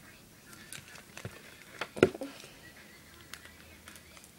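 Hands handling a duct-tape wallet: scattered light rustles and clicks, with one louder knock about two seconds in.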